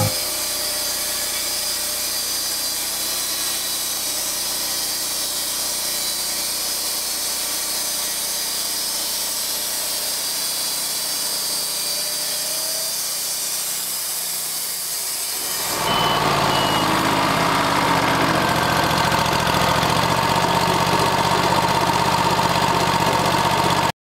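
Portable Wood-Mizer LT40 HD band sawmill running, its 29 hp Kohler EFI gas V-twin engine driving the band blade as the saw head cuts along a squared log. About two-thirds of the way through, the sound grows louder and fuller and holds there.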